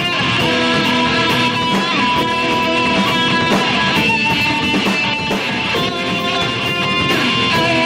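A live band playing, with electric guitar prominent, loud and continuous.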